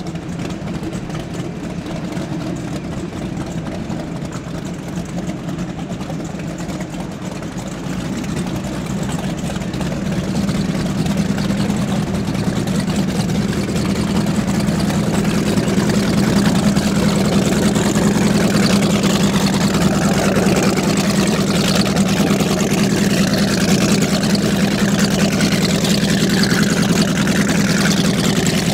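Cigarette Racing Aeromarine powerboat's twin engines running at low speed: a steady deep drone that grows louder through the first half, then holds steady.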